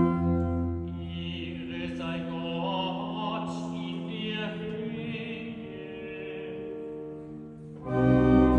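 Church pipe organ in a large, reverberant stone church. Held chords give way to a quieter passage with a wavering, vibrato melody line above, then the full organ comes back in loudly near the end.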